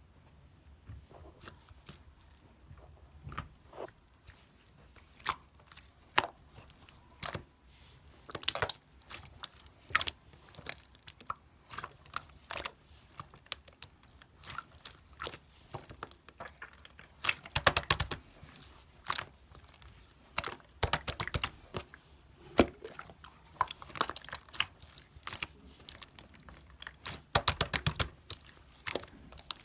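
Small batch of clay slime being mixed and kneaded by hand, making irregular sticky clicks and crackles in quick clusters.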